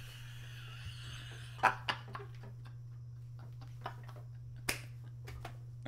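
A steady low electrical hum with a few short sharp clicks, the loudest about a second and a half in, just after, and near the end.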